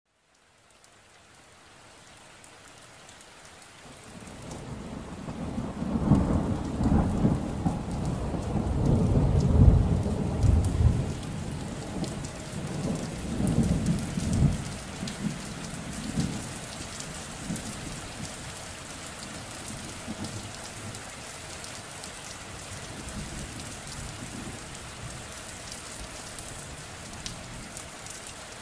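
Rain with a roll of thunder: the rain fades in over the first few seconds, thunder rolls in loud low swells from about five to fifteen seconds in, then steady rain carries on.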